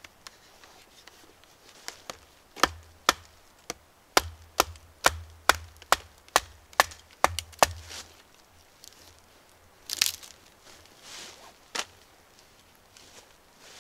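A length of dead wood being struck with a hand-held tool: about a dozen sharp wooden knocks, roughly two a second, then two more spaced out near the end.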